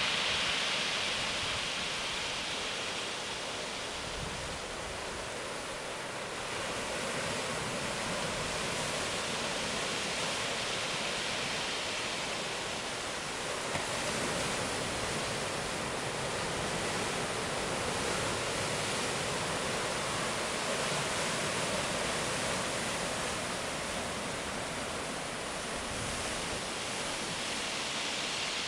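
Sea surf breaking on rocks and rushing up a narrow rocky channel: a continuous roaring hiss that swells and eases gently as the waves come in.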